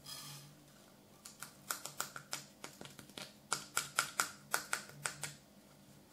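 An opened shotgun cartridge case being shaken and tapped to empty its black flake powder into a metal tin on a scale. About twenty small sharp clicks come irregularly over some four seconds, then stop.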